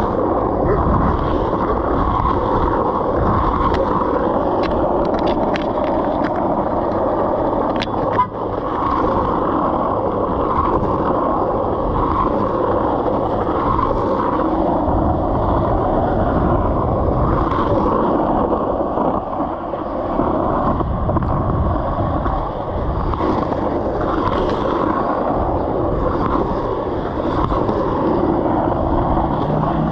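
Skateboard wheels rolling over rough, cracked asphalt: a steady loud rumble, with a few clicks and a sharp knock about eight seconds in.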